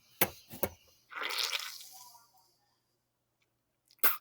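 Wet mouth noises from a mouthful of saliva: two quick smacks, a wet hissing sputter lasting about a second, and another smack near the end.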